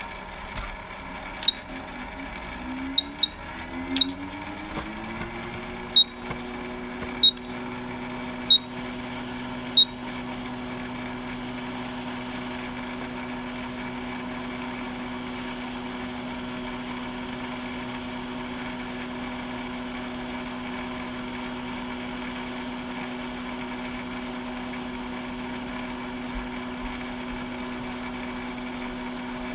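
Hot air rework station's fan rising in pitch over a few seconds, then running with a steady hum. During the first ten seconds there are about eight sharp clicks, each with a short high beep, like the station's buttons being pressed.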